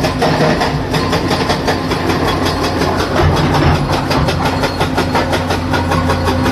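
Komatsu PC200-7 hydraulic excavator's six-cylinder diesel engine running steadily, with a fast, even clatter throughout.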